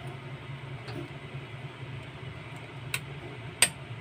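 Two sharp clicks from a small blue-capped seasoning bottle handled over the cooking pot, the second louder, over a steady low hum.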